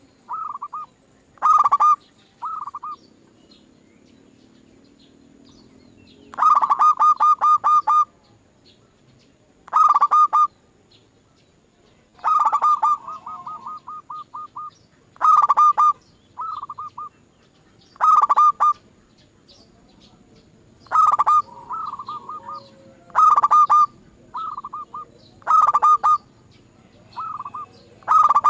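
Zebra dove (perkutut) cooing: repeated short phrases of quick, staccato pulsed coo notes, one every second or two, with a couple of longer rolling runs. It is a lure call meant to set a caged zebra dove calling back.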